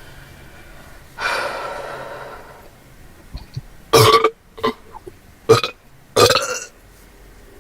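A person's non-speech throat sounds: one longer drawn-out one about a second in, then four short loud ones in quick succession.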